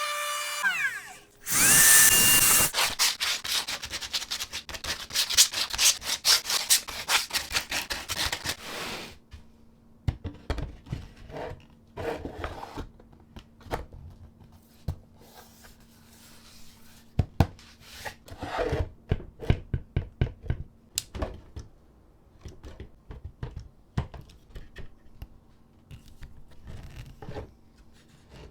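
A power drill-driver starts with a rising whine and runs for about seven seconds in a dense, rapid chatter, typical of driving screws into wood. It then stops, and a series of scattered knocks and clicks follows as wooden parts are handled.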